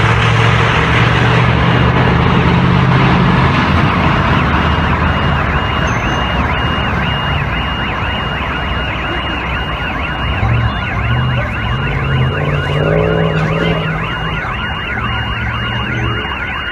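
Electronic siren or alarm wailing in a fast, repeating rise-and-fall, settling into a steady warble from about four seconds in, over a low droning tone that comes and goes.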